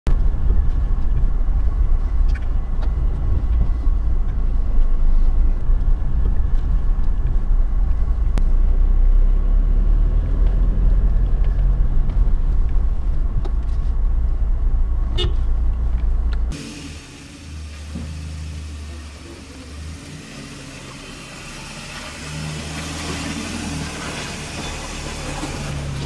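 Steady low rumble of a car's cabin while driving on a dirt road. About two-thirds of the way through it cuts off abruptly to a quieter outdoor sound of vehicle engines idling.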